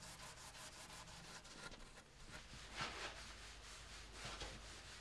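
Fine steel wool rubbing oil into a wooden slab surface, a faint scratchy rubbing that swells softly with a few strokes. The wool polishes the timber as the oil is worked in.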